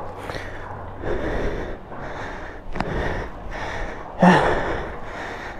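A person breathing close to the microphone in irregular puffs, with a sharp click about three seconds in and a louder burst of noise about four seconds in.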